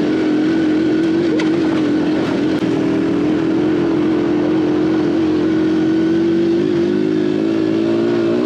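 Aveta Ranger Cub Cross 115 motorcycle's 115cc single-cylinder four-stroke engine running at steady revs while being ridden. Its pitch creeps up a little near the end.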